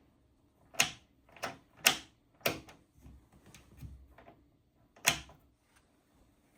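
A run of sharp clicks and knocks in a small room: five loud ones, four of them in quick succession over about two seconds and one more near the end, with fainter taps between.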